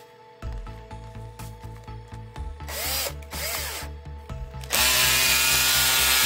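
Aimsak 14.4 V cordless drill's motor: two short trigger blips with a rising and falling whine about three seconds in, then a steady run starting a little before five seconds and continuing to the end.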